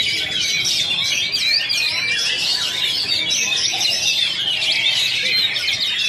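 Oriental magpie-robin (kacer) singing a fast, unbroken stream of varied whistles and chirps.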